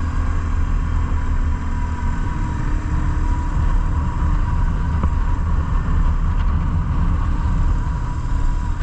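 BMW R1150GS Adventure motorcycle's flat-twin boxer engine running steadily while the bike is ridden along.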